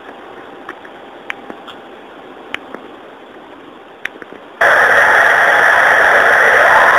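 Steady recording hiss with a few faint short ticks. About four and a half seconds in, it jumps suddenly to loud, even hiss, as if the gain had been turned right up.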